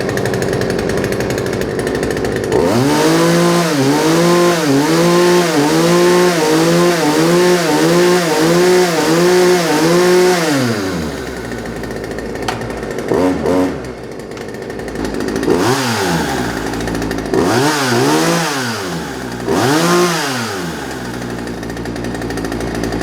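1975 Poulan Wood Shark two-stroke chainsaw running at idle, then blipped up and down about ten times in quick succession, a little over one rev a second. It drops back to idle, then gives a few more separate revs that rise and fall before settling to idle again.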